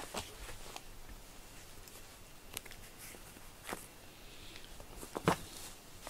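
A cat playing with a string toy: scattered scratches and taps of its claws and paws on a sisal scratching pad, with a sharper tap about five seconds in.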